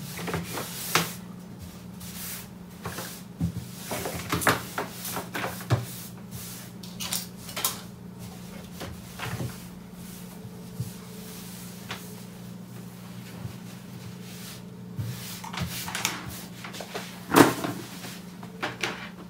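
A cloth wiping a wooden desktop, with scattered clicks and knocks of small objects and cables being moved and set down on it, the loudest knock near the end. A steady low hum runs underneath.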